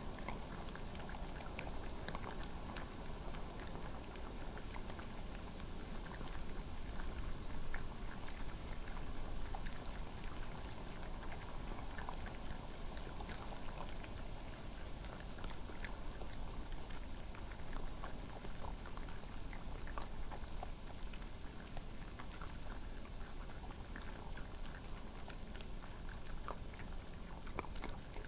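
European badgers and red foxes crunching and chewing peanuts: many small scattered crunches and clicks over a steady background hiss.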